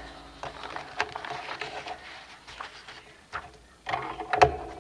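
Paper handling on a sliding paper trimmer: a collaged card board rustling and scraping as it is slid into place, with scattered light clicks and knocks. About four seconds in, a louder rustle ends in a sharp click as the trimmer's blade carriage is handled.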